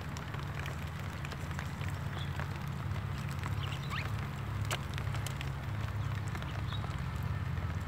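Steady low rumble with scattered light crackles and ticks, and a few brief high bird chirps, about two seconds in, around four seconds and near seven seconds.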